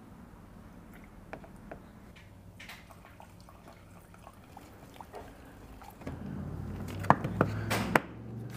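Paint activator and reducer poured into a disposable plastic mixing cup: a faint trickle with light handling clicks. Near the end, two sharp clicks as the lid is pressed onto the cup.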